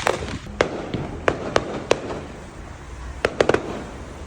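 Fireworks going off: a string of sharp bangs at uneven intervals, three of them in quick succession a little past three seconds in, over a low background rumble.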